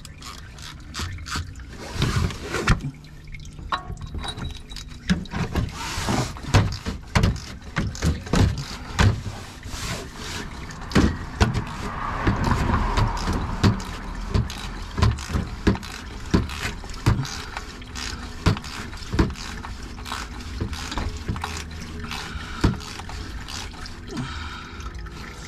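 3/8-inch ratchet clicking in short back-and-forth strokes, driving a cap wrench that tightens a plastic oil filter housing cap down to snug. The clicks come in irregular clusters.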